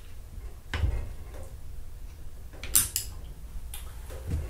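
Metal clicks and knocks as a Seb NEO X front rifle rest is handled and its lever and knob adjusted, with several separate clacks, the sharpest nearly three seconds in.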